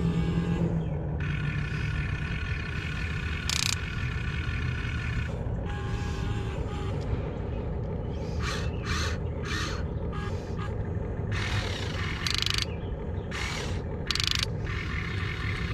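Huina 1592 RC excavator's electric metal-gear motors whirring as the boom and bucket move, in short stop-start bursts over a steady low rumble.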